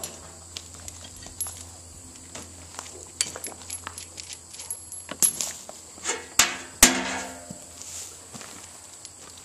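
Metallic clinks and clanks of a wrench, steel nut and bolt being handled at a Skidmore bolt-tension calibrator as a tested bolt is taken out. A few sharper clanks come between about five and seven seconds in.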